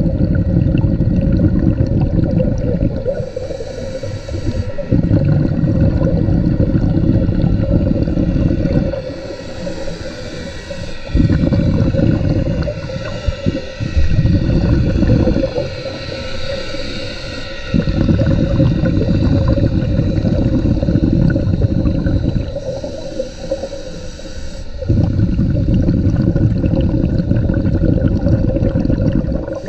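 Underwater breathing of a scuba diver on a regulator. Long bubbly exhalations of three to five seconds alternate with short hissing inhalations, about every six to seven seconds, so five exhalations and four inhalations are heard. A faint steady hum runs underneath.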